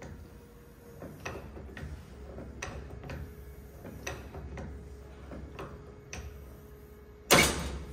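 Knockoff Beverly-style throatless bench shear cutting sheet metal in short strokes, each bite of the blade a sharp click, about one every half second. Near the end comes one much louder sharp clack.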